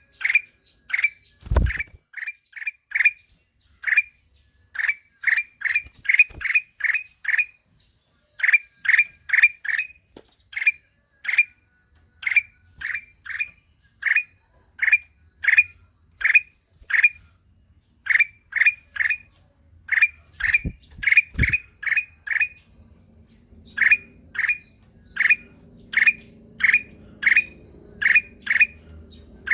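Kutilang emas (black-crested bulbul) giving short, sharp call notes over and over, about one to three a second, with brief pauses. A steady high whine runs behind the calls, and there are a couple of dull low thumps.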